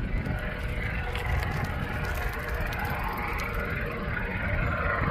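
Distant helicopter in flight: a steady drone of rotor and engine, with an uneven low rumble underneath.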